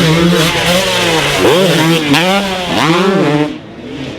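Yamaha YZ250 two-stroke dirt bike engine revving hard, its pitch rising and falling again and again as the throttle is opened and chopped through the rhythm section's jumps. It drops away about three and a half seconds in.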